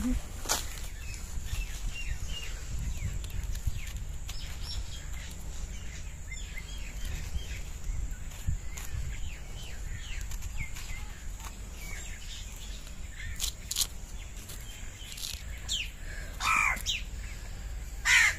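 Small birds chirping and twittering in short calls throughout, over a low steady rumble, with a crow cawing near the end.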